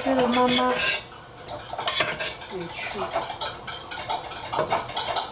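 A utensil scraping and clattering against a pan as fried rice is stirred: irregular knocks and scrapes throughout.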